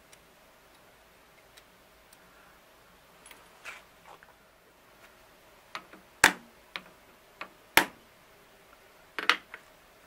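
Ball-peen hammer striking thin aluminium sheet clamped in a vise to bend it into a bracket. A few light taps, then two sharp strikes about a second and a half apart, and a quick double strike near the end.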